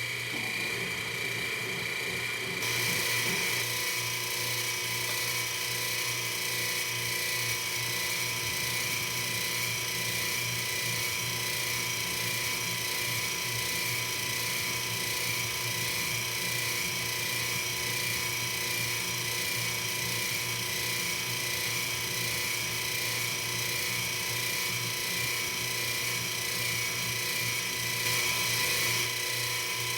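Metal-working machine tool running steadily with a constant whine, cutting metal while a replacement nut is being machined. The cutting hiss grows louder about three seconds in.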